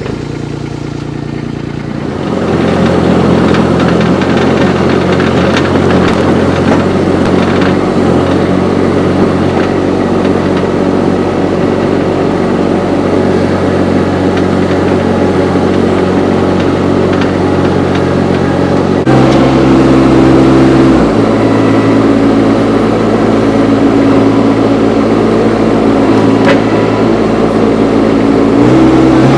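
Baumalight TRL 630D track loader's three-cylinder Kubota diesel running, getting louder about two seconds in. Its pitch steps up for a couple of seconds about two-thirds of the way through, then again near the end.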